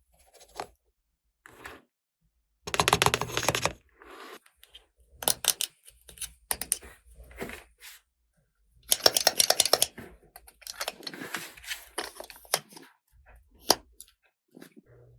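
Toy packaging being handled and opened: plastic crinkling and rustling in irregular bursts, the loudest about three seconds in and again about nine seconds in, with small sharp clicks between them.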